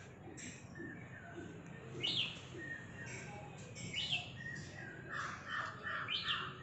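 Birds calling: a sharp downward-sweeping chirp about every two seconds, three times, and near the end a quick run of repeated shorter notes.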